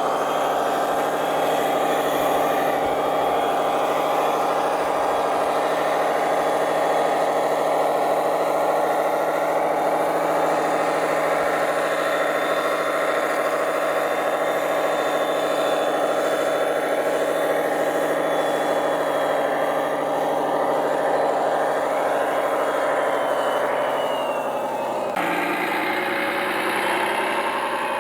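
Radio-controlled construction vehicles running: a steady engine-like drone with a faint high motor whine, changing abruptly to a different engine note about 25 seconds in.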